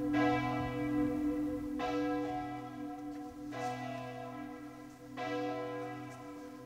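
A church bell tolling slowly: four strokes about every second and three-quarters, each one ringing on into the next.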